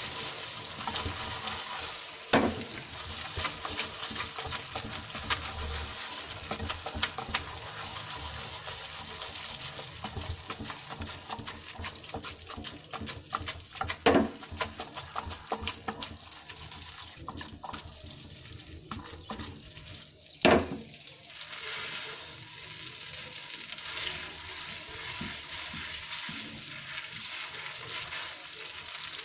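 Spaghetti and sauce sizzling in a hot frying pan as it is tossed and stirred. Three sharp knocks of the pan or a utensil sound through it: a couple of seconds in, about halfway, and about two-thirds through.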